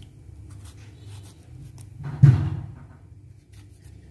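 Faint ticks of a knife cutting a tomato by hand over a cooking pot, with one loud dull thump about two seconds in.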